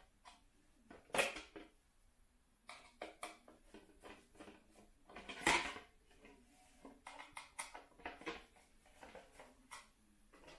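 Small hard plastic parts and packaging being handled during unboxing: irregular light clicks and knocks, with two louder clacks about a second in and midway.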